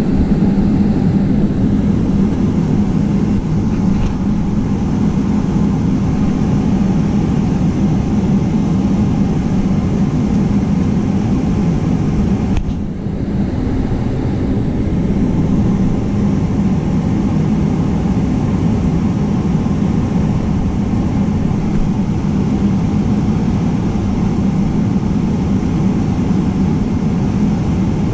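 Boeing 777-300ER engines and airframe heard from inside the cabin behind the wing while the jet taxis: a steady low hum under a rushing noise, with a brief dip about halfway through.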